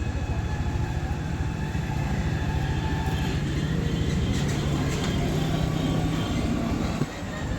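A motor running steadily with a rapid low pulsing and a steady hum, dipping briefly about seven seconds in.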